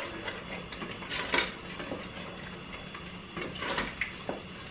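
A spoon stirring thick tomato stew in a stainless steel pot, with a few light scrapes and knocks against the pot about a second in and again near the end.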